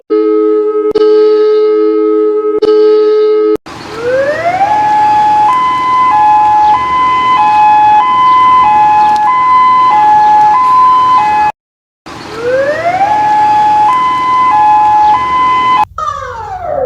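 An emergency alarm siren. It opens with a steady two-note alert tone, then winds up in pitch and settles into a high-low two-tone wail, switching pitch about every half second or so. It cuts off, winds up again the same way, and ends in a cluster of falling pitch sweeps.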